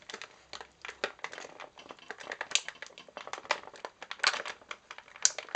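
Thin clear plastic packaging tray crinkling and crackling in the hands, with irregular sharp clicks as a small pocket knife works at the elastic bands holding the action figure in the tray.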